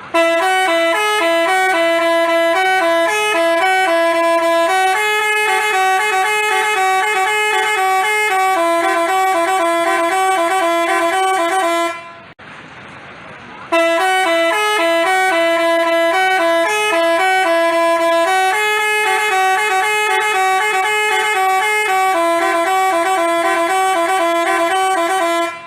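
Basuri telolet bus horn playing a multi-note melody of short stepping tones. The tune stops about twelve seconds in and, after a brief pause, plays again from the start.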